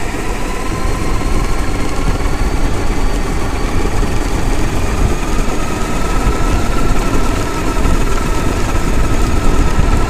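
Traxxas X-Maxx RC monster truck driving over gravel, heard from its onboard camera: the brushless electric motor and drivetrain whine, climbing slowly in pitch over the first few seconds and then holding steady. Under it, tyres crunch on the gravel with a low rumble.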